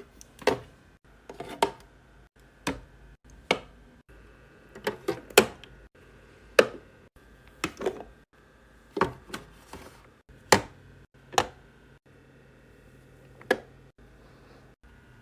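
Skincare bottles, jars and tubes being set down and arranged in a mini fridge: a series of separate sharp knocks and clicks of plastic and glass containers at irregular intervals, some in quick pairs.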